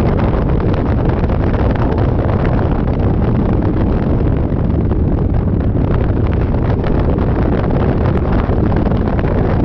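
Steady, loud wind rushing over the microphone while riding a Yamaha Majesty 400 scooter, a rumble that drowns out the engine.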